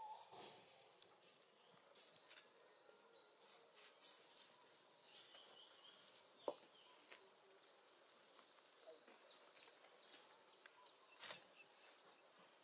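Near silence: faint outdoor ambience with scattered small clicks and rustles, a few faint high chirps, and one sharp click about halfway through.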